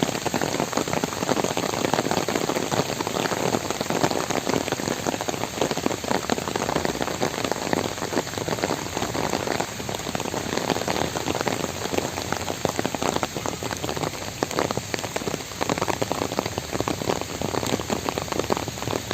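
Steady rain falling, a dense continuous patter of drops.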